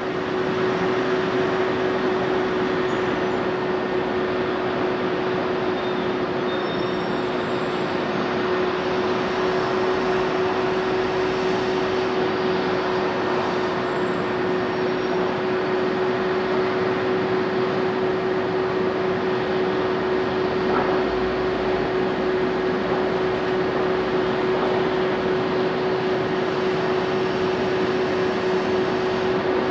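Steady machine drone with one constant hum in it, even in level and unchanging in pitch.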